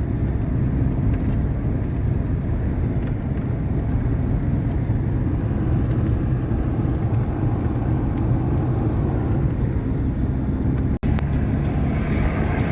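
GAZelle van driving along the road, its engine and road noise a steady low rumble heard from inside the cab. The sound briefly cuts out about eleven seconds in.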